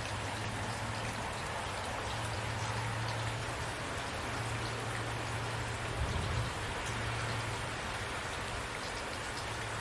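Steady rain falling, with scattered drops ticking through it and a low steady hum underneath; a brief low bump comes about six seconds in.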